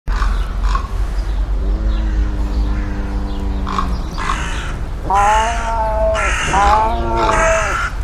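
Sand cat calling: a low, steady drawn-out call lasting about two seconds, then two louder, higher calls with wavering pitch, one after the other, in the last three seconds, over a constant low rumble.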